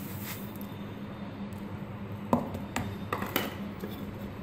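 Powdered sugar being tipped from a plastic tub into a mixing bowl: a few light knocks and clinks of kitchenware from about two seconds in, the first the loudest, over a steady low hum.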